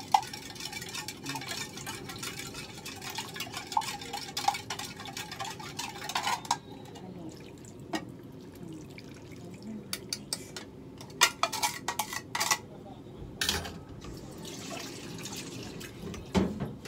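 A spoon stirring liquid seasoning, with busy swishing and clinking for about the first six seconds, then scattered clinks and knocks of kitchen utensils.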